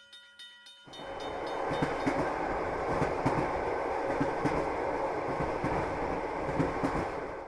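A level-crossing bell ringing in even strokes about three times a second, then a train rushing past loudly from about a second in, its wheels clattering rhythmically over the rail joints, cutting off abruptly at the end.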